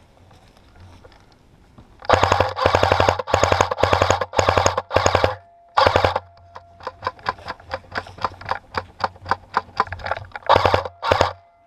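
Airsoft gun firing rapid full-auto bursts: several bursts of quick shots each lasting half a second to a second, starting about two seconds in, with sparser single shots between them and two more bursts near the end.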